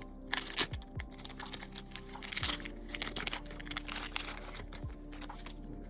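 Starter-deck card packaging being handled and opened by hand: scattered light clicks and taps, with crinkling and rustling of the wrapping around the middle.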